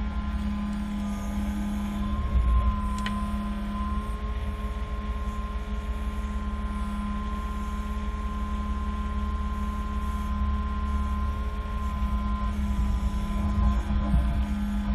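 Polaris Ranger side-by-side engine running steadily with a deep rumble and a steady whine, with no revving.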